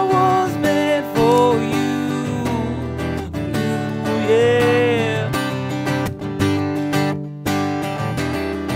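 Acoustic guitar strummed in a steady country rhythm during an instrumental break between sung verses. A higher melody line bends and glides in pitch over the chords twice.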